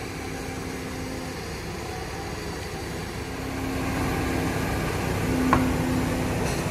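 Heavy construction machinery engines running steadily, with a low hum that grows louder about three and a half seconds in. A single sharp knock comes near the end.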